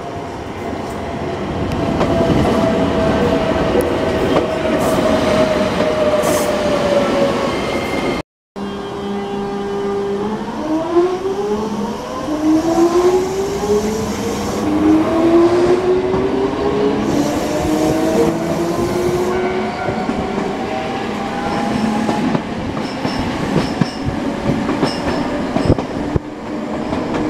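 Electric train heard from inside the carriage: running noise with a held tone that sags slightly, a brief dropout about eight seconds in, then the traction motors whine in a series of rising tones as the train pulls away and picks up speed.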